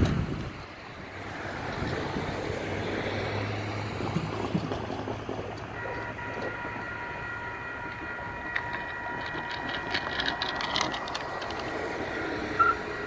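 A car passes over the crossing at the start. About six seconds in, the grade-crossing warning bell starts ringing steadily as the signal lights flash and the gates lower, which warns of an approaching train.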